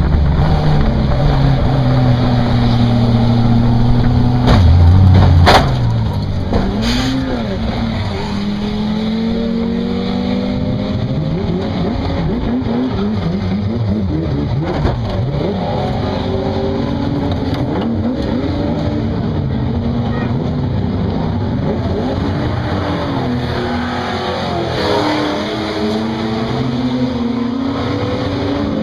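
Race car engine heard from inside the car, revving up and falling back again and again through gear changes and corners. A sharp crack comes about five and a half seconds in, after which the engine note is lower and quieter.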